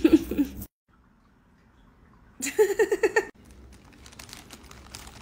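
A brief voice, then faint crinkling and ticking of a plastic bag as a cat paws at it.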